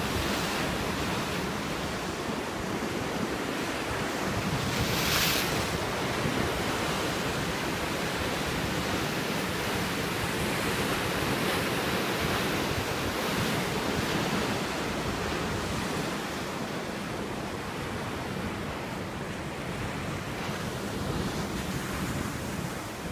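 Ocean surf crashing and churning against a rocky shore: a steady wash of white water, with one louder splash about five seconds in.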